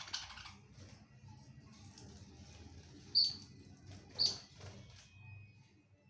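Caged budgerigars chirping: two loud, short, high chirps about a second apart near the middle, with softer chirps around them. A short rustle comes at the start.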